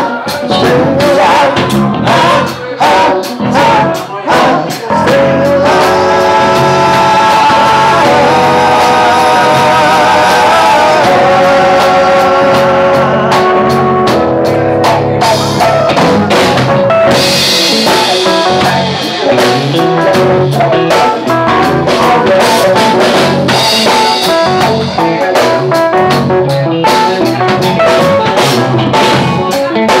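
Live band playing on electric guitar, bass guitar, keyboard and drum kit. A stretch of long held notes runs through the middle, followed by a cymbal crash.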